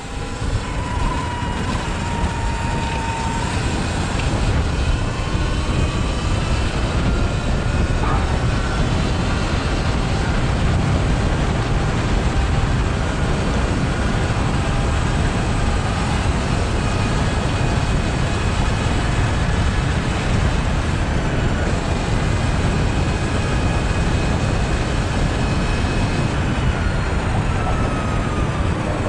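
Sur Ron electric dirt bike riding through city traffic: a steady rush of wind and road noise, with a faint whine gliding up and down in pitch.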